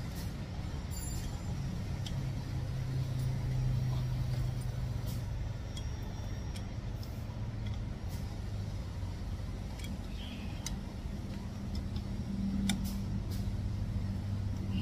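A steady low mechanical hum, with a few sharp, faint clicks of hand tools as cylinder head bolts are turned a further 90 degrees with a breaker bar.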